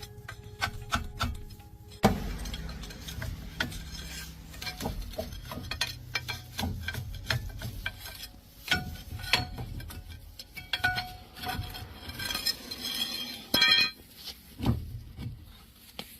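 Irregular metallic clinks, taps and knocks of hand tools and metal parts being handled during a vehicle axle repair, over a low rumble.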